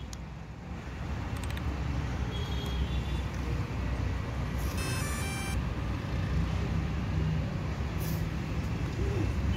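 Steady low rumble of road traffic, with a few short electronic beeps about two and a half seconds in and a brief multi-tone chime about five seconds in.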